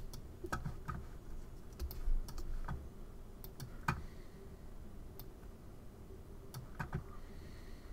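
Computer keyboard and mouse clicks: about a dozen separate sharp clicks at irregular intervals, a few close together about a second in and again near seven seconds, over a faint steady background.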